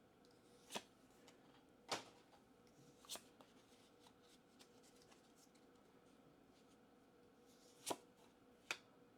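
Pokémon trading cards from a booster pack being handled and flipped through one by one: five short, sharp card snaps spaced irregularly over a quiet background, two close together near the end.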